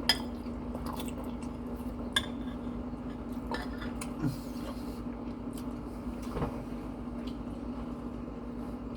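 Eating sounds: a fork clicking and scraping in a dish of gravy-covered poutine, with scattered light clinks and moist chewing. A steady low hum runs underneath.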